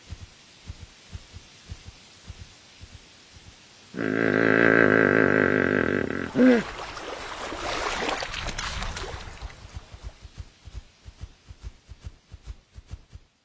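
Camel grunting: a loud, rumbling call with a wavering pitch about four seconds in, lasting about two seconds, then a short higher cry and a rougher, noisier stretch that fades out. Faint light ticks come before and after.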